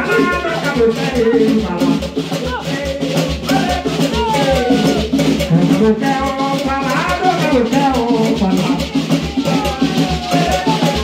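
Afro-Brazilian terreiro ritual music: hand drums beaten in a steady, driving rhythm with rattles shaking along, and voices singing a chant over them.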